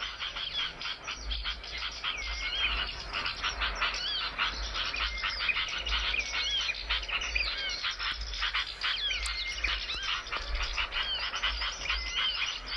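Small songbirds singing continuously: a dense stream of rapid chipping notes mixed with short curved whistled phrases, the kind of recorded birdsong played as lure audio to call in wild birds.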